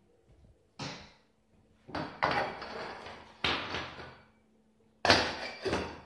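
Small stainless-steel saucepans and lids being knocked and set down by a child's hands: a handful of metallic clanks that trail off, the loudest near the end.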